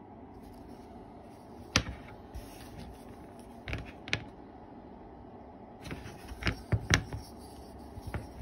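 Sharp taps and clicks as a pen and a lure blank are handled against a cutting mat: a loud tap about two seconds in, two more around four seconds, and a quick cluster of taps between six and seven seconds, with faint scratching of the pen between them. A steady low room hum runs underneath.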